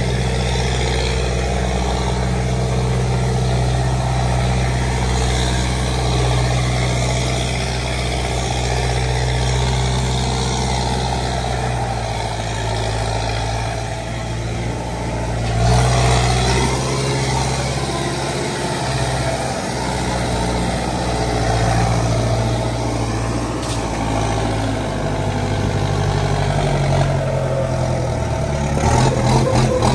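Backhoe loader's diesel engine running steadily at a low, even note. Its pitch shifts about halfway through and again near the end.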